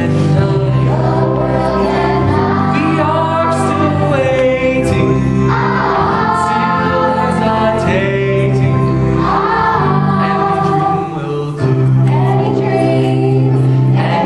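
Musical-theatre song: a lead singer and a choir of children singing together over instrumental accompaniment.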